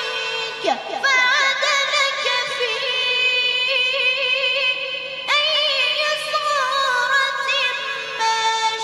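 A boy's voice reciting the Quran in a melodic, sung style, holding long ornamented notes with a wavering pitch. A new phrase begins about five seconds in.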